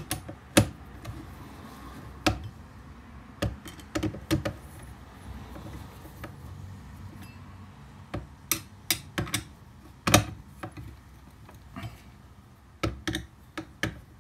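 Irregular sharp clicks and light knocks as a thin metal rod is handled on a wooden workbench, tapping against the bench and the pole pruner's metal shaft tube. The loudest knock comes about ten seconds in, with a quick run of clicks near the end.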